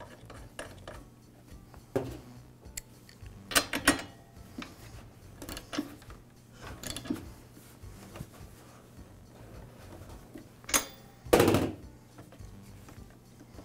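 Ratchet and spark plug socket clicking and clinking as a spark plug is tightened into an engine's cylinder head: scattered short metal clicks, with a louder clatter about eleven seconds in.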